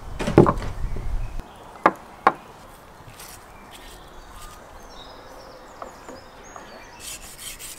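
Things set down and handled on a wooden table: a cluster of bumps in the first second and a half, then two sharp knocks about two seconds in. After that, a quiet outdoor background with faint bird chirps.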